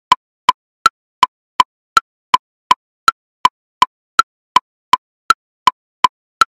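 Electronic woodblock metronome clicking in triplets at 54 beats per minute: a higher woodblock click on each beat followed by two lower clicks, about three clicks a second.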